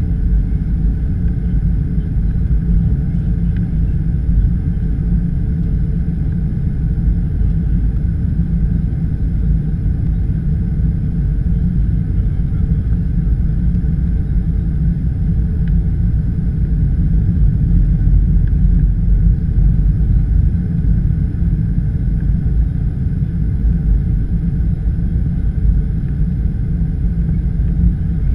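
Steady low rumble of a Boeing 737-700 airliner on descent, heard inside the passenger cabin: jet engine and airflow noise.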